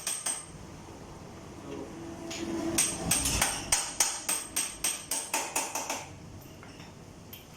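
Hand hammer blows during a motorcycle tyre change: a couple of knocks at the start, then a quick run of about a dozen strikes at roughly three or four a second, stopping about six seconds in.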